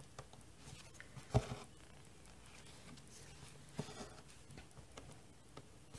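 Quiet cross-stitching sounds: a needle and embroidery floss drawn through Aida fabric in a plastic hoop, with soft rustles, a sharp tap about a second and a half in and another tap near four seconds.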